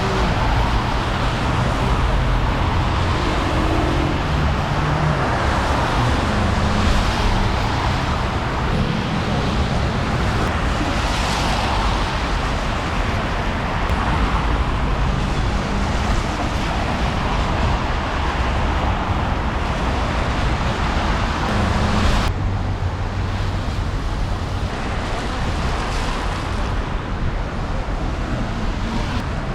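Street traffic noise: a steady wash of passing vehicles with a low engine hum underneath. The sound changes abruptly about two-thirds of the way through.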